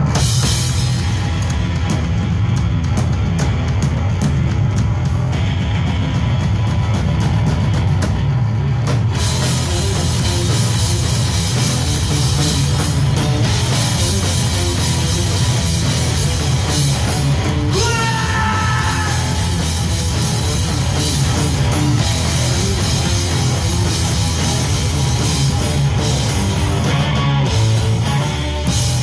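Live three-piece rock band playing loudly: electric guitar, bass guitar and drum kit.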